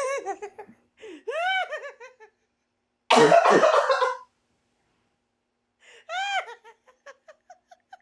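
Two people laughing hard: a run of high, rising-and-falling laugh calls, a loud rough burst about three seconds in, then one more call and short quiet giggles near the end.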